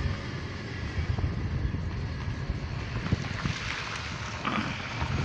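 Wind buffeting the microphone over the low rumble of a moving vehicle. In the last couple of seconds, water splashes from its tyres on a flooded road.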